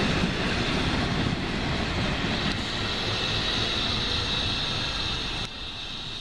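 Train running past at a station, a steady rolling rail noise with a hiss on top, dropping suddenly in level near the end.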